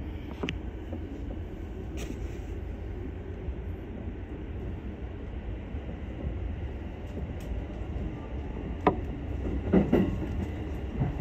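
Keihin-Tohoku Line E233-series electric commuter train running, heard from inside the front car behind the driver's cab: a steady low rumble with a few sharp clicks, and a cluster of louder knocks near the end.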